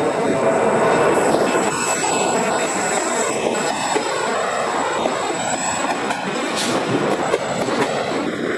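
Two Union Pacific diesel freight locomotives passing close by with their engines running loud, loudest about a second in. Tank cars roll past behind them.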